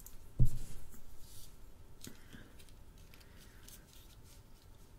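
Hands handling a smartphone and peeling off its plastic protective film: a low thump about half a second in, then faint rustling and small clicks.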